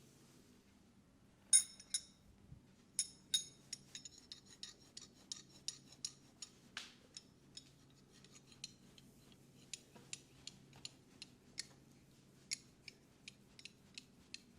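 Barber's scissors snipping in an irregular run of sharp metallic clicks, about two to three a second, starting about a second and a half in, the first ones the loudest.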